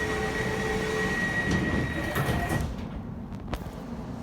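Elizabeth line train doors closing: a steady high warning tone over the train's rumble, which stops about two and a half seconds in as the doors shut, then a sharp click about a second later.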